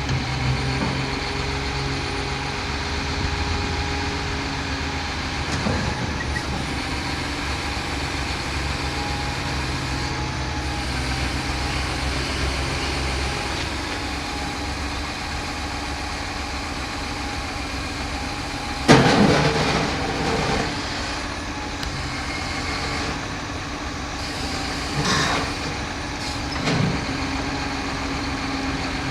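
John Deere 744K wheel loader's diesel engine running steadily. A sudden loud burst of sound comes about two-thirds of the way through, with two smaller ones near the end.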